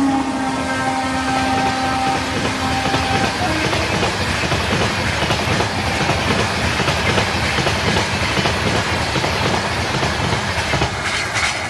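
Horn of a WAP-7 electric locomotive ending as it passes, its pitch dropping slightly and dying away about three and a half seconds in. After that comes the steady rush and clatter of the passenger coaches running past over the rails.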